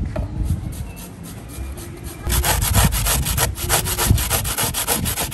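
Onion being grated on a handheld flat metal grater: quick rasping strokes, about four or five a second, starting a little over two seconds in.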